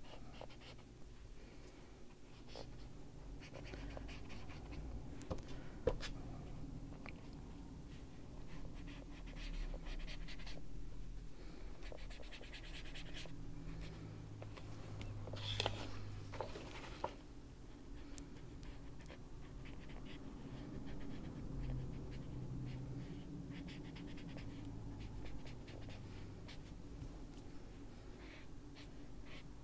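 Ranger mini detail blending tool's foam tip rubbing Distress Ink onto colouring-book paper: a faint, scratchy brushing with a few sharper ticks about six seconds in and again around sixteen seconds.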